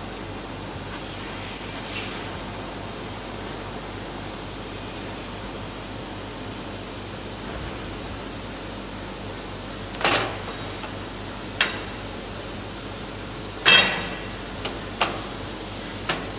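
Steady high hiss of a fiber laser cutting machine at work, with five sharp metal clanks, the loudest about three-quarters of the way through ringing briefly.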